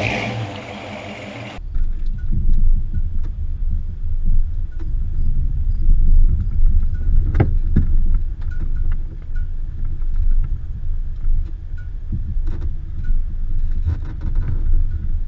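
Off-road 4x4's engine and drivetrain rumbling low and steady, picked up by a dash-mounted camera inside the cab as it crawls along a rough creek-bed trail, with a few sharp knocks and rattles from the bumps.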